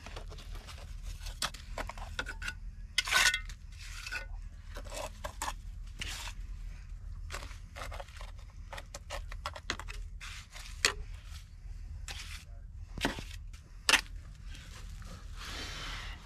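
Trowel scraping and slapping wet mortar, scooped from a plastic bucket and spread onto concrete blocks, with scattered clinks and a few sharper knocks as the blocks are worked.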